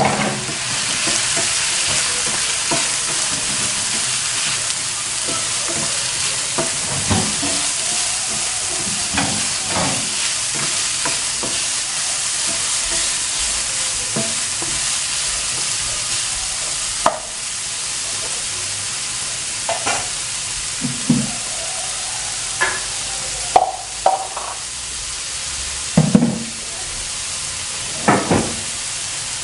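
Diced carrot and potato sizzling steadily as they fry in oil in a nonstick wok, with a spatula stirring, scraping and tapping against the pan now and then, more often in the second half.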